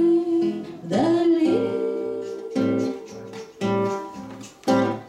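Nylon-string classical guitar strumming the closing chords of a song, with a woman singing long held notes that slide up and hold in the first half. A final chord is struck near the end and rings away.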